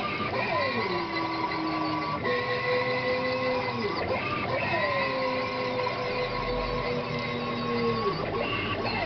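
Stepper motors of a homemade CNC machine whining as the axes move: several steady tones that slide down in pitch as each move starts, then break off briefly between moves about two, four and eight seconds in.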